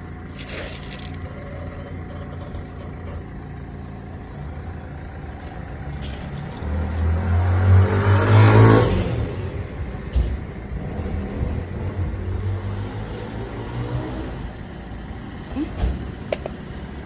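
A car passing close by, swelling to its loudest about eight seconds in and then fading, over a steady low rumble of traffic.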